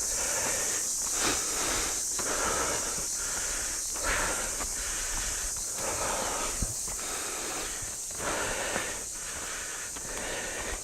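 A person breathing heavily and rhythmically while climbing a steep slope, about one breath a second, over a steady high hiss.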